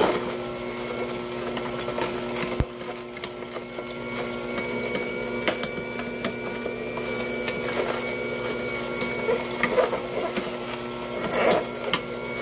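Elechomes cold-press slow juicer running: a steady motor-and-auger hum with occasional sharp cracks as the auger crushes cubed produce.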